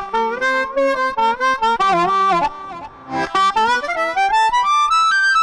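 Amplified harmonica, played through a bullet-style harp mic into a pedalboard with a Boss MS-3 octave effect adding the same note an octave below, so each note sounds doubled and thicker; the setting also has delay. It plays a bluesy phrase of held and bending notes, breaks off briefly about two and a half seconds in, then plays a second phrase.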